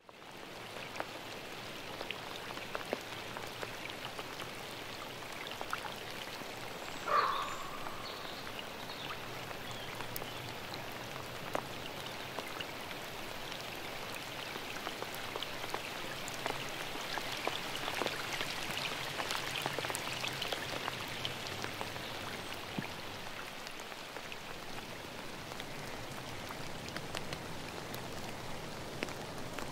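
Steady rain falling, with many separate drops ticking close by. A brief louder sound stands out about seven seconds in.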